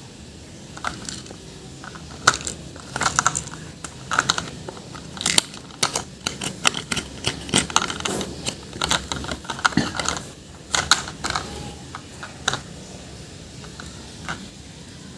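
Hard plastic toys being handled: irregular clicks and clatter, dense through the middle and thinning out near the end.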